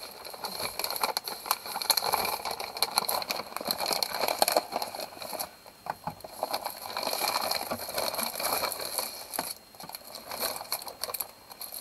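A plastic mailer bag and plastic-wrapped items crinkling and rustling as the package is handled and emptied onto a wooden table, with many small clicks and knocks.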